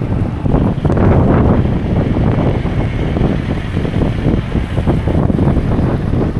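Blizzard wind gusting hard and buffeting the microphone, a loud, uneven noise that swells and dips.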